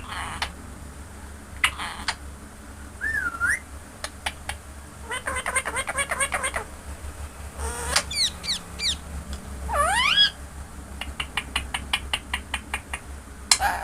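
Ringneck parrot calling: harsh squawks and several sharply rising whistles, then a quick run of short clicks near the end.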